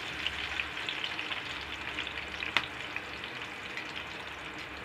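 Chopped onions and green chillies frying in hot oil in an aluminium pot, a steady sizzle full of small crackles, with one sharp click about two and a half seconds in.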